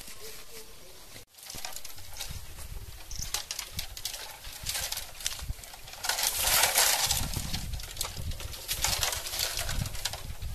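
Dry bamboo branches and leaves rustling and crackling as they are pulled and pushed aside, loudest a little past the middle, with low knocks and footfalls underneath.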